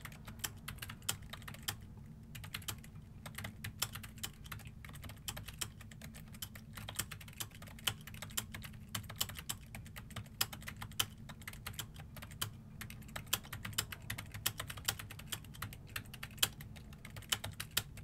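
Fast typing on a Kinesis Freestyle2 Blue split keyboard: a quick, irregular run of soft key clicks with a short pause about two seconds in. A faint low hum runs underneath.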